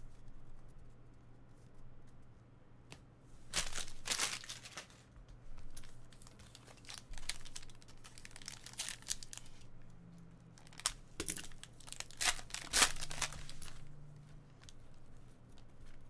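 Plastic trading-card pack wrappers being torn open and crinkled: a burst of tearing about three and a half seconds in and another run of tearing and crinkling around eleven to thirteen seconds in, with lighter rustling between.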